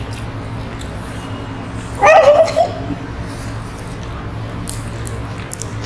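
A woman's brief high-pitched vocal cry, a squeal-like sound lasting about half a second, about two seconds in, over a steady low background hum.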